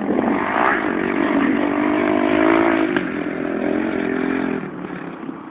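Motocross dirt bike engine running hard on the track at a steady high pitch, then fading near the end.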